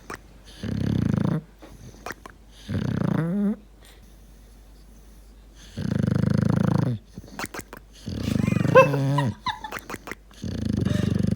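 A dog making about five drawn-out low grumbling sounds through its breath, each about a second long, with a wavering whine in two of them.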